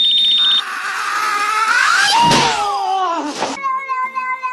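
A short high pulsing beep, then a high wavering cry that rises and falls with a sharp hit about two seconds in. Then a cat's long, drawn-out meow, slowly falling in pitch, like a drawn-out 'no'.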